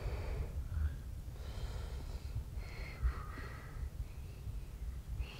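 Low, uneven rumble of wind on the microphone, with a few faint breathy sounds from a person close by.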